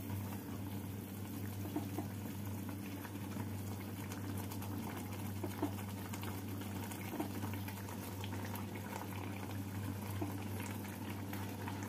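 Mustard-and-yogurt fish gravy bubbling at a simmer in a pan, with small scattered pops over a steady low hum.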